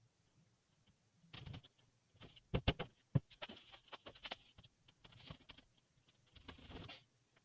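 Scattered light taps, clicks and rustling, as of small objects being handled or set down on a hard surface. A few sharper knocks come in the middle.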